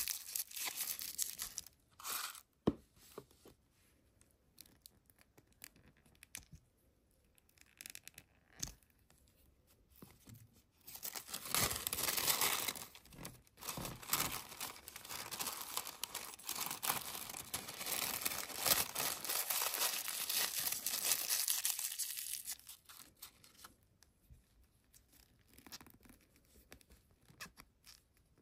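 Tissue paper rustling and crinkling as hands fold and twist it around small doll pieces. There is a short burst at the start, a quiet spell, and then a long stretch of continuous rustling in the middle before it quietens again.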